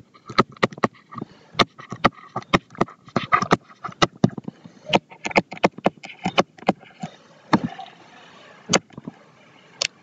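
Stylus writing on a tablet screen: a quick, irregular run of sharp taps and light scratching as words are handwritten, thinning out for a moment near the end.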